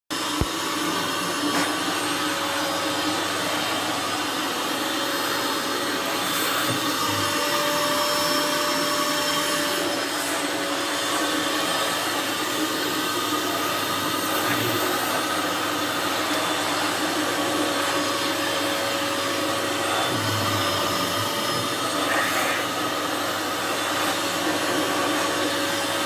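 Vacuum cleaner running steadily with a constant whine, its floor-brush nozzle drawn over a cat's fur on a carpet.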